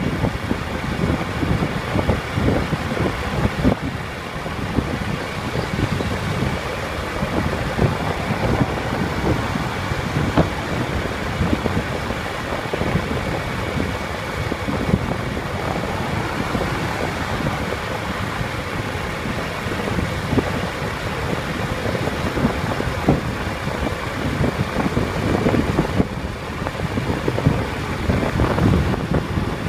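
Vehicle cruising along a highway at speed: steady engine and road noise, with wind gusting irregularly on the microphone.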